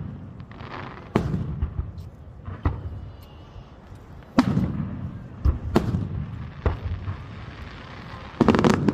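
Fireworks display: aerial shells bursting in a series of sharp bangs, each followed by a rumbling echo, with several going off in quick succession near the end.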